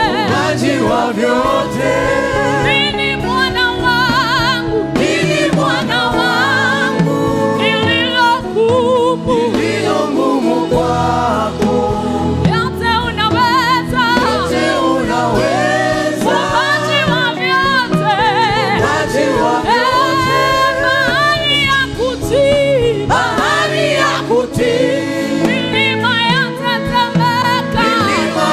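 Choir singing a gospel worship song.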